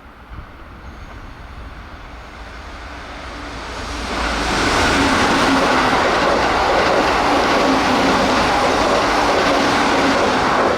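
A Keihan 3000 series train passing at about 105 km/h. The rail noise builds over the first four seconds into a loud, steady rush of wheels on rails as the cars go by, with a steady hum underneath.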